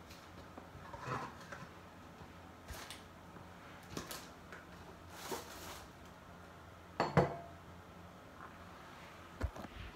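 Small makeup items being picked up, handled and set down: scattered light clicks and knocks with a brief rustle about five seconds in, and a sharper double knock about seven seconds in.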